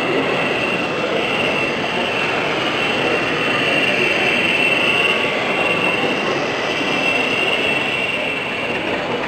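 OO gauge model BR diesel locomotive with DCC sound running past hauling coaches, its onboard sound playing a diesel engine through a small speaker with a steady high whine that swells and fades, over a steady background hubbub.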